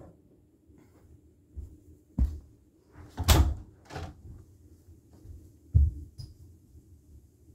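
Handling noise: four knocks and clunks of objects being moved or set down, the loudest a sharp knock about three seconds in.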